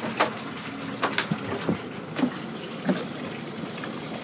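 Small boat's engine idling low, with irregular sharp splashes and knocks of water against the hull.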